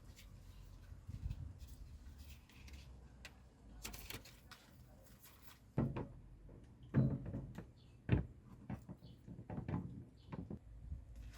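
Irregular knocks and clatter of objects being handled, with three louder thumps in the second half.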